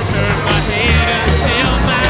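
Rock song with singing over a steady bass beat.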